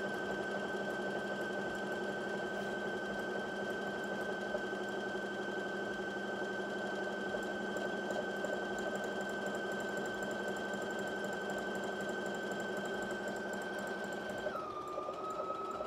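Brother Innov-is NV1300 computerised sewing machine stitching a one-step automatic buttonhole at steady speed, its motor whining at a constant pitch. About a second and a half before the end it slows down by itself and the pitch drops, as the machine finishes the buttonhole.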